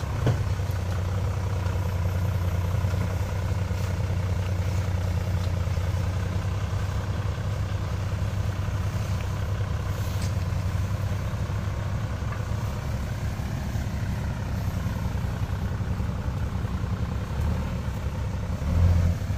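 Toyota Land Cruiser 80 Series engine running steadily at low revs as the 4x4 crawls through deep mud on a rutted track. There is a brief louder swell near the end.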